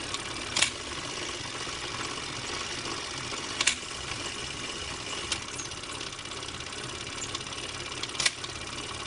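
A steady mechanical whirring and rattling runs throughout, with a few sharp clicks: one about half a second in, one near four seconds, one after five seconds and one near eight seconds.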